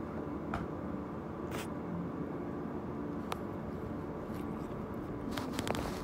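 Steady indoor room hum with a few faint clicks, and a quick run of several clicks near the end.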